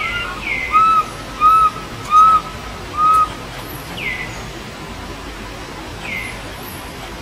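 Baby macaque giving shrill, whistle-like coo calls for its mother: four short arched calls in quick succession, then two fainter falling calls.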